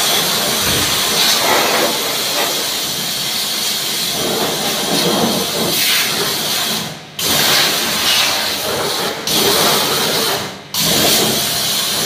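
Pressure washer jet hissing as it sprays a window air conditioner's condenser coil and fins, with the washer's motor running. The spray cuts off and restarts three times in quick succession in the second half as the trigger is released and squeezed again.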